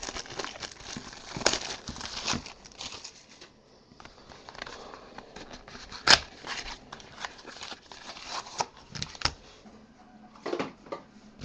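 A Panini Select 2013 football cardboard mini box being opened and its foil-wrapped card packs handled: rustling, crinkling and scraping with scattered sharp clicks, busiest in the first few seconds. The sharpest click comes about six seconds in.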